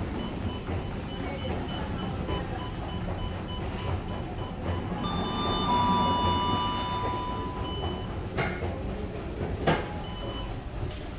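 Metro station hall ambience with a steady low rumble. About five seconds in, an electronic two-tone chime steps down from a higher note to a lower one and holds for about two seconds. Two sharp knocks follow near the end.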